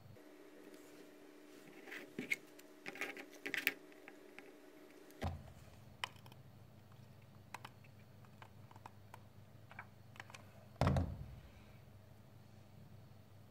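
Wooden ice cream sticks clicking and tapping against each other and the tabletop as they are handled and fitted together: a quick run of sharp clicks in the first few seconds, scattered faint ticks, and one louder knock near the end.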